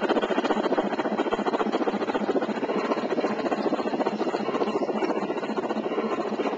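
Bachmann Shay model locomotive and its train running past on garden railroad track, a fast steady clatter from the running gear and wheels, easing slightly near the end as the caboose goes by.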